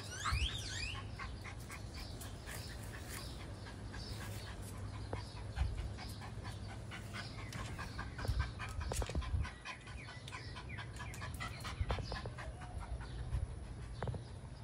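Chihuahua whining in short rising cries and panting, the dog having scented an opossum hiding in the car's engine bay.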